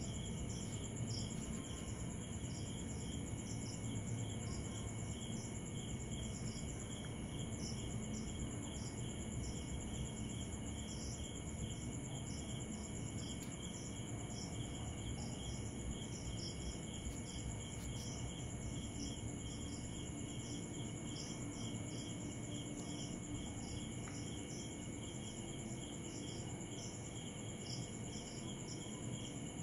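Night chorus of crickets and other insects: several steady trills at different pitches, with a short chirp repeating among them, over a low steady rumble.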